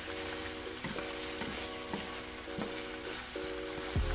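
Food sizzling in a hot pan as spaghetti and Vienna sausage with tomatoes and basil are tossed with a wooden spatula, the spatula knocking and scraping against the pan about every half second. Soft background music with held notes plays under it.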